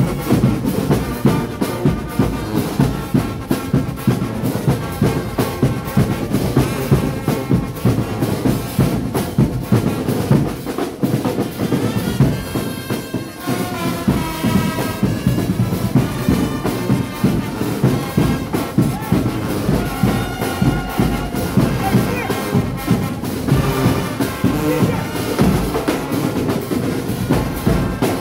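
Marching band playing on the move: marching drums beat a steady march rhythm while brass, sousaphones among them, carry the tune. The drumming eases off briefly about halfway through, leaving the brass notes to the fore.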